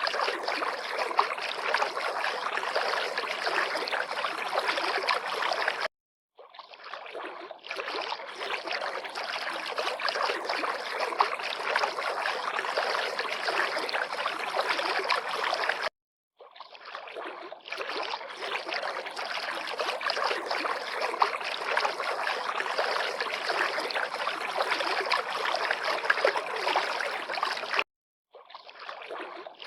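River water lapping and flowing in a steady rush. It cuts to silence three times, about ten seconds apart, and fades back in each time.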